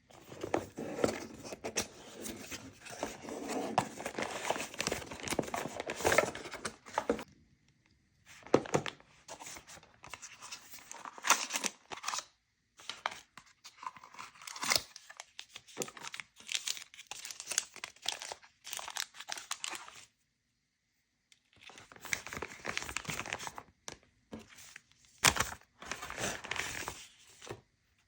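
Product packaging being opened by hand: tearing and crinkling of wrapping, steady for the first several seconds, then in irregular bursts with short pauses.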